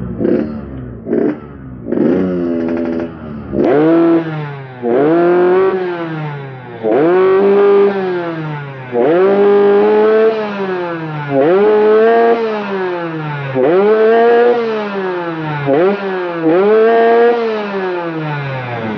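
Yamaha RX-King's single-cylinder two-stroke engine revved again and again from idle. After a few short, light blips, it gives about one strong rev every two seconds, each rising quickly in pitch and sinking back down. The engine is being test-revved after a tuning adjustment meant to let it reach higher RPM.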